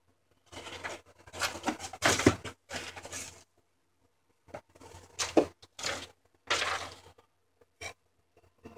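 Handling noise from a microphone's cardboard-and-plastic retail package being picked up and shown: uneven rustling and scraping in two stretches of a few seconds each, then a single click near the end.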